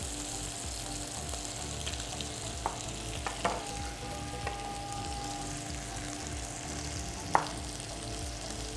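Lamb ribs in sauce sizzling steadily in a frying pan. A few sharp knocks of a knife on a cutting board as a lemon is cut, the loudest near the end.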